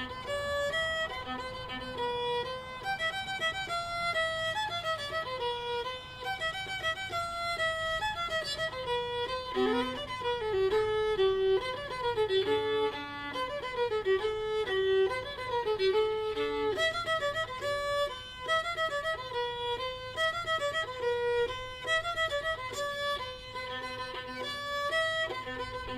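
Background music: a lively fiddle tune played in quick running notes.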